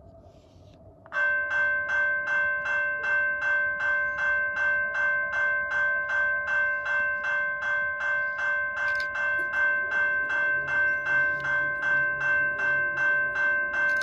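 Railway level-crossing warning bell starting to ring about a second in and ringing on evenly at about three strikes a second: the crossing signal has activated for an approaching train.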